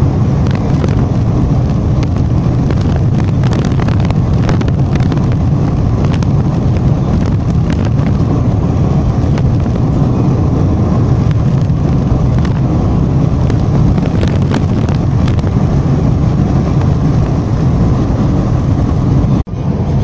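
Inside a moving car: a steady low road and engine rumble with frequent small knocks and rattles. The sound drops out for a moment near the end.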